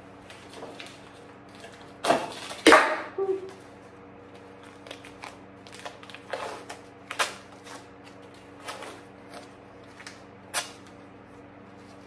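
Scattered clicks, taps and rattles of hands working a bicycle's cable housing and small fittings, loudest about two to three seconds in, over a steady low hum.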